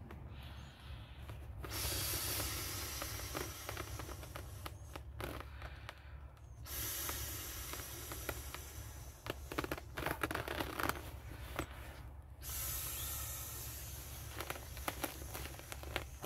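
Air being blown into an inflatable swim tube's valve as a hiss in long rushes of several seconds each, broken by short pauses, with a few sharper clicks near the middle.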